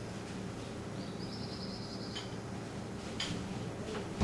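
Room tone in a small room during a pause in speech: a steady low electrical hum, a faint high-pitched tone lasting about a second starting a second in, and a faint click after about three seconds.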